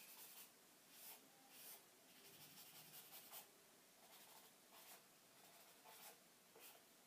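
Faint scratching of quick drawing strokes on paper: short, irregular strokes, roughly one or two a second.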